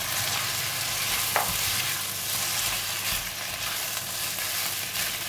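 Beef, broccoli and shiitake mushroom sizzling in hot oil in a non-stick pan while a silicone turner stirs and tosses them: a steady sizzle with the soft scraping of the turner.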